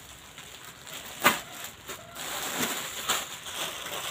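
Faint handling noise with one sharp knock a little over a second in. Near the end comes the rustle of a plastic-wrapped garment being handled.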